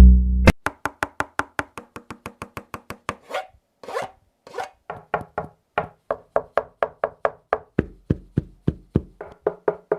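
A boAt Aavante Bar 2450 soundbar playing music. About half a second in, the heavy bass beat drops away to a sparse run of short, clicky plucked notes at about four to five a second.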